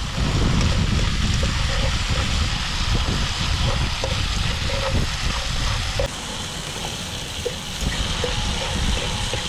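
Chopped onions, tomatoes, peppers and garlic sautéing in a little hot oil: a steady sizzle over a low rumble that eases about six seconds in.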